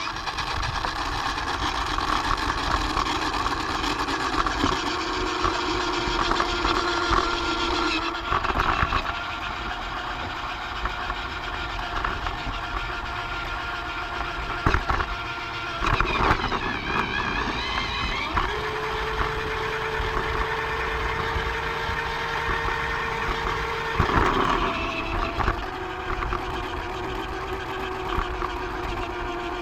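Motorised Lego train running on plastic track: a steady electric-motor whine over a busy rattle of wheels on track, the whine changing pitch at several sudden breaks.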